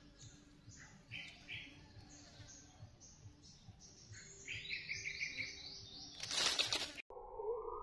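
Forest birds chirping in short repeated calls that come faster and higher about four seconds in. Near the end a loud hissing, rustling burst lasts under a second and cuts off sharply, and a synthetic electronic music cue starts right after.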